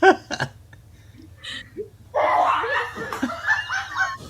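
People laughing: a few short bursts at the start, then a longer, fuller run of laughter from about halfway through.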